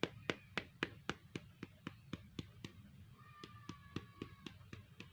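A lime being tapped over and over in a quick, even rhythm, about four knocks a second, to loosen its juice so it squeezes easily. The knocks are sharpest in the first half and a little softer after.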